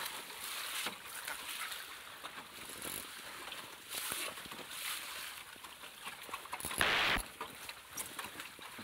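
Water splashing and slapping against the hull of a small sailing dinghy moving through light chop, with a louder splash about seven seconds in.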